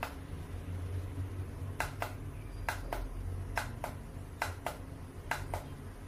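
Waterless essential-oil aroma diffuser running and misting, with a low steady hum. From about two seconds in, light clicks come in pairs, roughly one pair a second.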